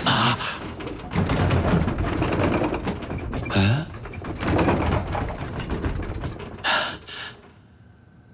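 Sound effects of an animated basketball game: a run of thuds and impacts, with two short bursts of noise near the end.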